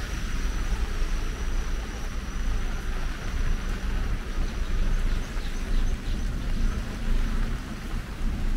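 Heavy rain hissing steadily on a wet street, with a line of cars running in slow traffic and a low rumble underneath.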